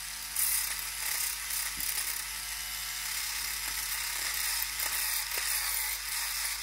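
Battery-powered Clatronic electric nail file running with a steady hum while its rotating head files down a fingernail, a hissing rasp joining in about half a second in and coming and going as the nail touches the file.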